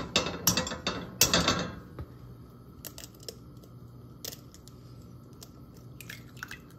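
An egg tapped several times against the rim of a stainless steel frying pan, its shell cracking, then a few quieter clicks as the shell is pulled apart. Under it, a faint steady sizzle of hot olive oil in the pan.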